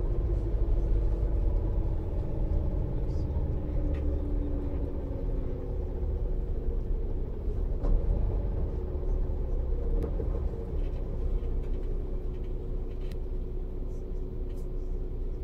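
Neoplan Tourliner coach's diesel engine and road rumble heard from inside the passenger cabin while under way. The engine note falls slowly in pitch over the first few seconds. A few light clicks come through the steady rumble.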